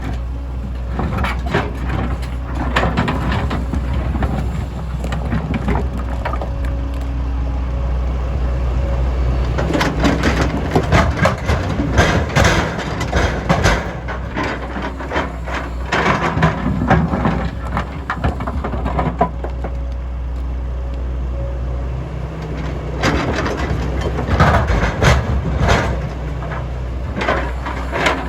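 MST M220LC excavator's diesel engine running steadily under load, with repeated bursts of stone scraping, knocking and clattering as the bucket digs and dumps rock into a truck bed.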